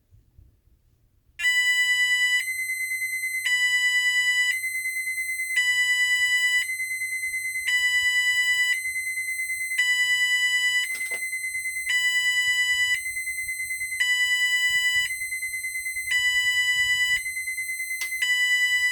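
Federal Signal SLM800R electronic sounder sounding a two-tone alternating alarm, switching between a low and a high tone about once a second. It starts about a second and a half in and stops right at the end.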